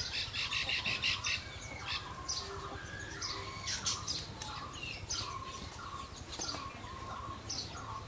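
Baya weavers chattering: rapid runs of high, buzzy chirps, one after another throughout, with some lower whistled notes between.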